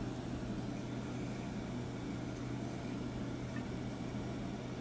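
Steady low hum with an even hiss, with no distinct knocks or taps: the background room tone of a workshop.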